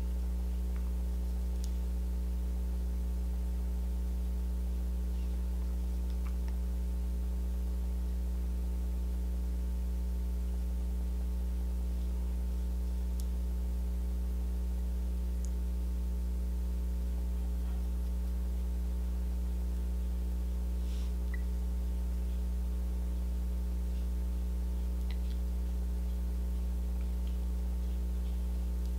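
Steady electrical mains hum: a low buzz with a row of higher overtones, unchanging throughout, with a few faint clicks in the second half.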